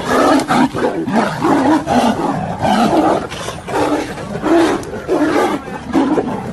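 Wild animals fighting, with continuous loud roaring and growling.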